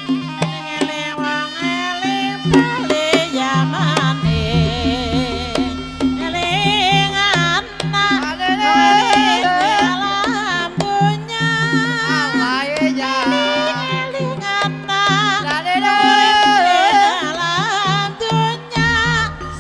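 Javanese gamelan music of the Banyumas ebeg style: a wavering sung or melodic line over sustained low gong tones and hand-drum strokes, with a deeper low layer entering about four seconds in.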